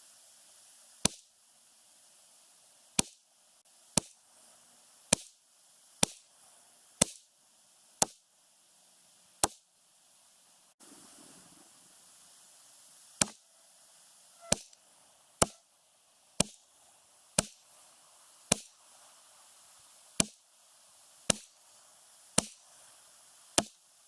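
Ruger 10/22 semi-automatic .22 LR rifle firing Remington Golden Bullet rounds at a steady pace of about one shot a second. There are eighteen sharp cracks, with a pause of a few seconds near the middle.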